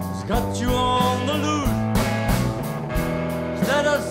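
Live blues band playing an instrumental passage: electric guitar lead with bending notes over bass guitar and drums.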